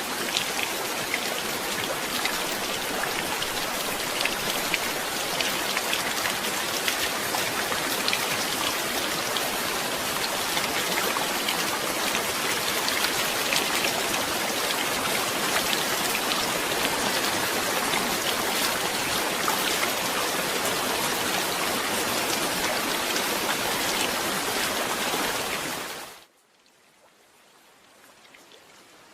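Steady heavy rain, a dense hiss of many drops with fine pattering ticks. Near the end it cuts off suddenly, leaving only a faint hiss of water that slowly grows.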